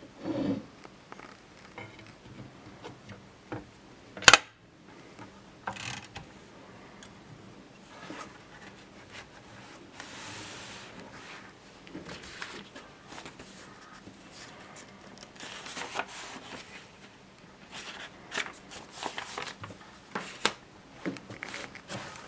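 Groma Kolibri portable typewriter being handled: irregular mechanical clicks and knocks with one sharp strike about four seconds in, a brief scrape about ten seconds in, and clusters of small clicks near the end.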